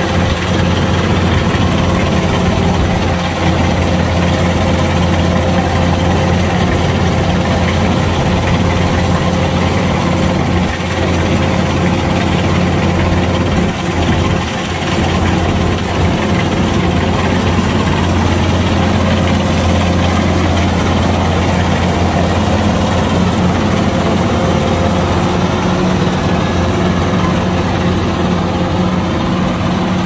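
Kubota DC-105X combine harvester's diesel engine running steadily under load as the machine cuts and threshes rice, a loud constant drone with a steady hum, dipping briefly a few times.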